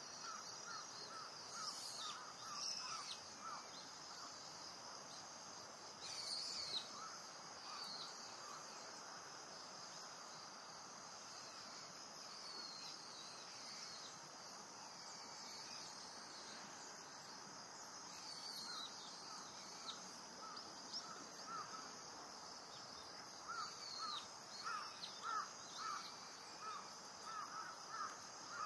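Steady high chirring of insects, with a bird calling in runs of short, quickly repeated notes, most of them near the start and again toward the end, and a few higher chirps in between.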